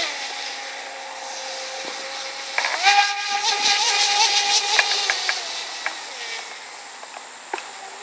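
Brushless electric motor of a Musculus RC speed boat running flat out across the water, a high whine with a hiss of spray. The whine drops to a lower steady pitch at the start, rises sharply again about two and a half seconds in, then fades as the boat runs away.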